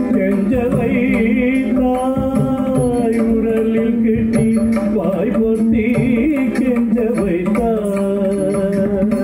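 Carnatic music for a padam dance piece: a sung melody that wavers and glides over a steady drone, with drum strokes throughout.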